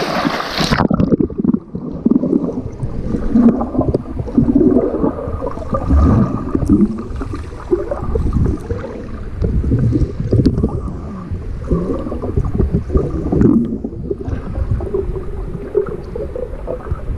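A splash as a swimmer plunges under, then muffled underwater gurgling and rumbling of water and bubbles stirred by the swimmer's kicks, heard with the camera submerged.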